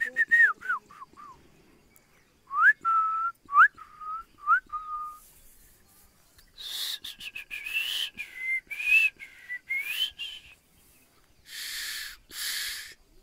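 A person whistling a series of short whistles: a few falling ones, then four that rise and hold briefly, then a longer wavering, breathy whistle. Two breathy hissing bursts follow near the end.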